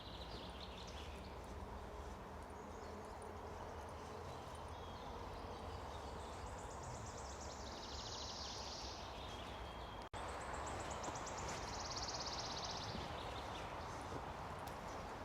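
A small songbird singing a rapid trilled phrase twice, each lasting about two and a half seconds and falling slightly in pitch, over a steady low background hum.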